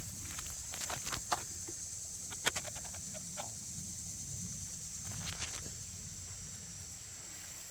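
A steady high-pitched insect drone, with a few scattered sharp clicks and rustles of handling or steps.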